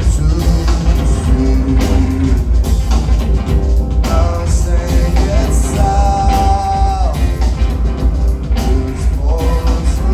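Live rock band playing, loud, with heavy bass and drums, guitar and a sung line. A long held note sounds from about six seconds in to about seven.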